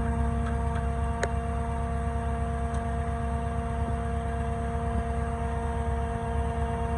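Concrete line pump's engine running steadily with a low rumble and a constant hum. A single sharp click about a second in.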